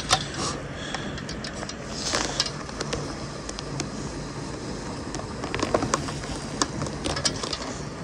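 Fishing reel being cranked to wind in line: an uneven mechanical whirr with many scattered sharp clicks.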